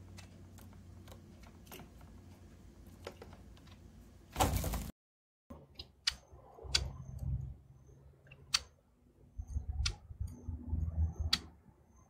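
Scattered light clicks and ticks from small white society finches moving and pecking, on a plastic table and then in a wire cage. A short burst of noise comes about four and a half seconds in, then a moment of silence, and the clicks after it are sharper, about one a second, over a low rumble.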